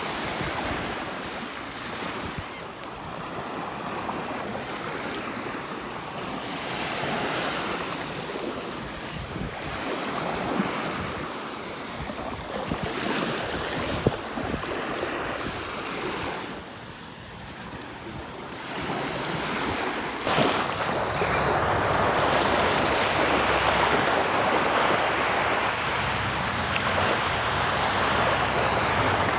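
Small Gulf of Mexico surf washing up on a sandy beach, swelling and ebbing with each wave, with wind buffeting the microphone. There is one sharp click about halfway through. The wash of surf and wind turns steadier and louder about two-thirds of the way in.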